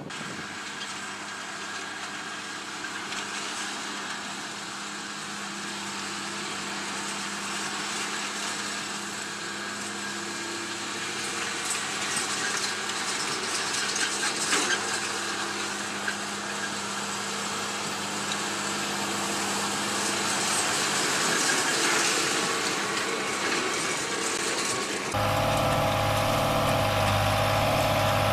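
Tractor and CLAAS large square baler running steadily in a hay field, a continuous engine and machinery noise. About 25 seconds in it changes abruptly to a Fiat tractor's diesel engine running with a small square baler, louder and deeper with a strong steady hum.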